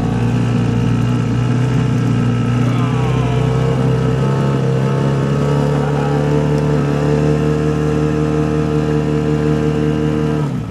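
A boat's outboard motor running steadily at a constant pitch, cutting off suddenly near the end.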